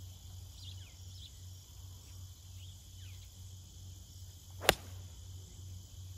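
A single sharp, crisp click of a 7-iron striking a golf ball, about three-quarters of the way in. Under it runs a steady high drone of insects, with faint high chirps now and then.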